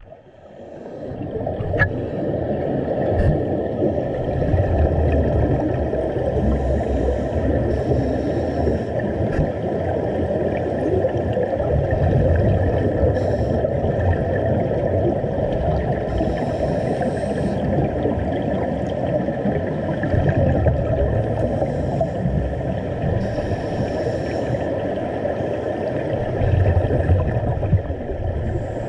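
Underwater rumbling and gurgling of rising air bubbles, muffled as heard by a submerged camera, with a brighter bubbling hiss that comes and goes every few seconds.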